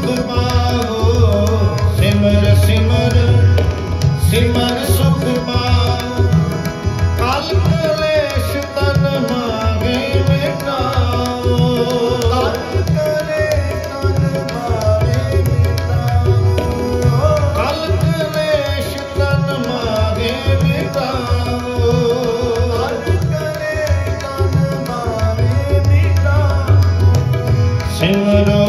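Sikh kirtan accompaniment: a tabla playing a steady rhythmic pattern under two Yamuna harmoniums.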